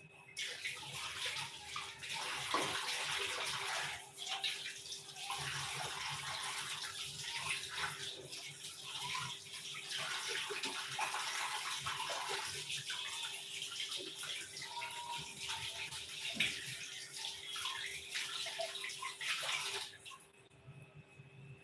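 Tap water running into a sink, with a short break about four seconds in, then shut off near the end.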